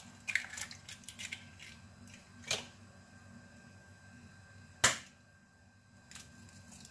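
Eggs being cracked for the blender: a sharp crack about five seconds in, the loudest sound, with a softer click about two and a half seconds in and a few light taps near the start.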